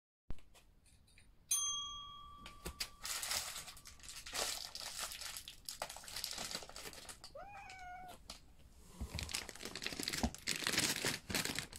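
A calico cat meows once about seven seconds in and hisses in the last three seconds: the defensive grumbling of a fearful cat at feeding time. Earlier there is a brief ringing tone and a rustling noise.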